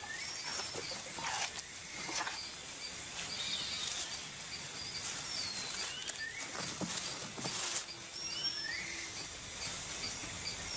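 Soft, irregular crackling and rustling of leaf tissue as leafcutter ants cut and handle leaf pieces. Scattered short, high chirps of small forest creatures sound in the background.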